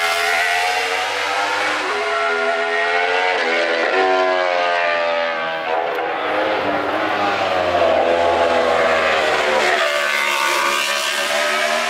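Road-racing motorcycles passing at full speed one after another, engines at high revs, their pitch sliding up and down several times as bikes approach and go by.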